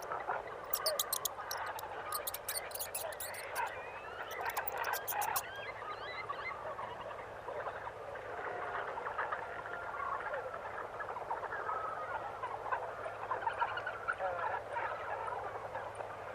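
A dense chorus of many animals calling at once: short overlapping calls and chirps, with sharp clicks over the first five seconds or so.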